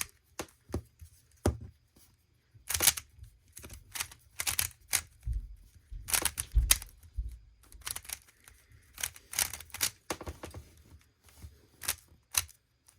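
Rubik's Phantom cube's plastic layers being turned by hand: an irregular run of quick clicks and clacks, in short clusters of turns with brief gaps between them.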